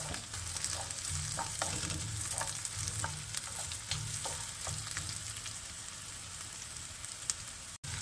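Chopped ginger and slit green chillies sizzling in sesame oil in a black iron kadai, stirred with a wooden spatula. The spatula scrapes and taps against the pan over and over.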